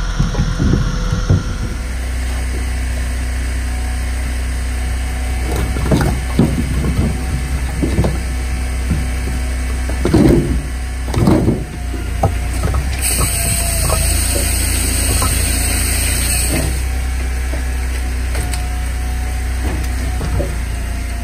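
Firewood processor's engine running steadily while split firewood knocks and clatters, landing on the pile in a truck bed and being moved about by hand. The knocks come now and then, the loudest past the middle.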